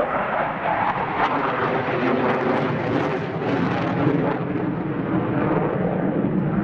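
The single RD-93 turbofan of a JF-17 Thunder fighter jet manoeuvring overhead: steady jet engine noise.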